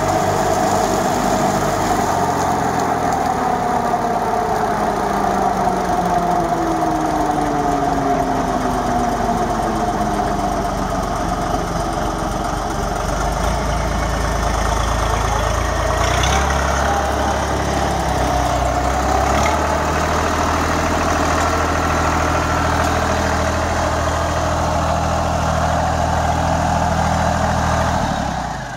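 Holder A55 tractor's diesel engine running steadily while it drives a Röll Compact double rotary mulcher cutting grass. One tone in the drone slides lower a few seconds in, and a deeper rumble builds about halfway through.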